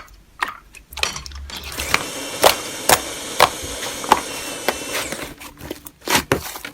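Slime being squished and stretched by hand: a crackly, sticky sound with a sharp pop about every half second.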